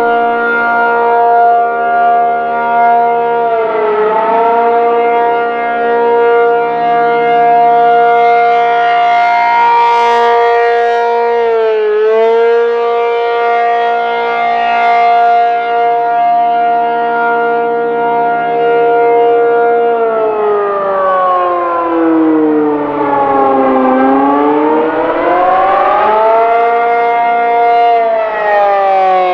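ACA P-50 rotating outdoor warning siren sounding. Its tone holds steady for a long stretch, dipping briefly in pitch twice as the siren hiccups, then about two-thirds of the way in starts to wail, the pitch falling, rising and falling again in slow sweeps, the attack signal.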